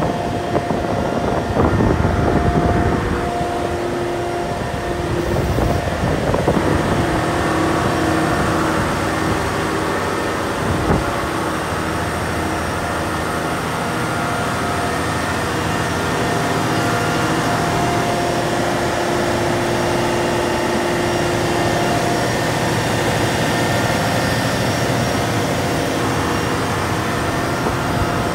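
Caterpillar 740B articulated haul truck's C15 diesel engine idling steadily, with gusts of wind buffeting the microphone in the first few seconds.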